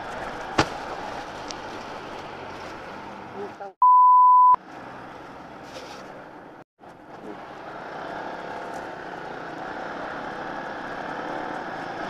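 Road and traffic noise from a moving motorcycle, with a sharp click about half a second in. About four seconds in the sound cuts out and a loud, steady high beep, a censor bleep, plays for under a second. The sound drops out again briefly a few seconds later.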